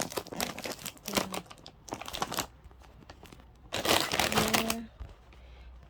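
Plastic snack packets crinkling in several irregular bursts as they are handled and moved around.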